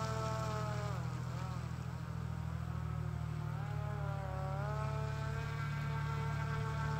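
Motor and propeller of a hand-made radio-controlled fan boat running with a whine that drops in pitch about a second in, then climbs again and holds steady, over a steady low hum.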